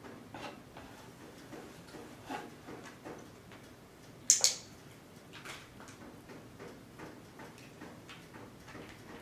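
Scattered small clicks and knocks as a puppy eats from a bowl while standing in a cardboard box lid, with one sharp, loud clatter about four seconds in.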